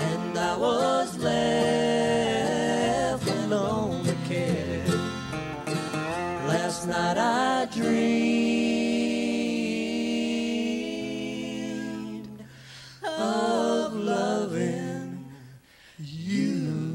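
Live bluegrass band playing and singing a slow song: voices over mandolin, fiddle and guitar, with a long held note about eight seconds in and short breaks in the phrase near the end.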